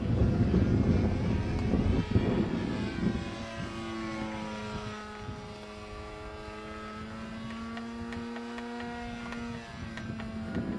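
Propeller engine of a Zero fighter plane flying overhead: a droning note that shifts in pitch as it passes and manoeuvres, steadier through the middle. Wind rumbles on the microphone for the first few seconds.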